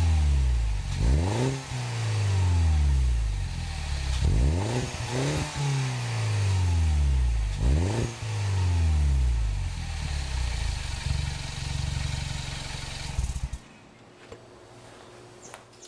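Mini Cooper Clubman S's turbocharged four-cylinder heard at the exhaust tips, revved in several quick blips that each fall back toward idle, then running steadily. The engine sound cuts off suddenly near the end.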